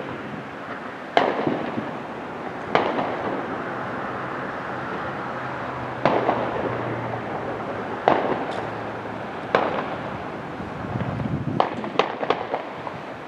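Fireworks going off: about eight sharp bangs at irregular intervals, each with an echoing tail, and a quick cluster of three near the end.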